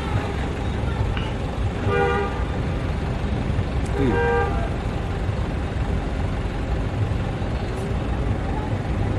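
A horn gives two short toots about two seconds apart, the second a little longer, over a steady low engine rumble.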